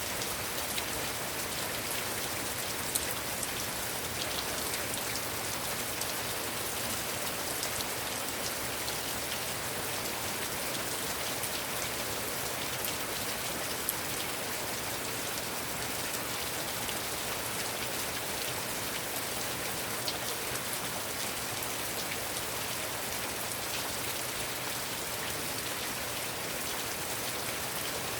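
Heavy rain falling steadily, a dense even hiss with scattered sharper drop ticks on surfaces.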